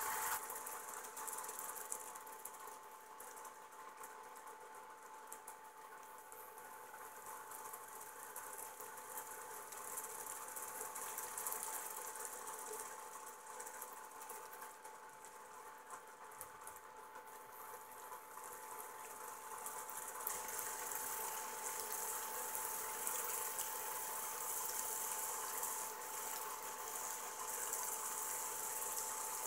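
Thick tomato-based meat and vegetable stew simmering in a pan on an induction cooktop: faint bubbling and crackling that grows louder about two-thirds of the way through, over a steady high tone.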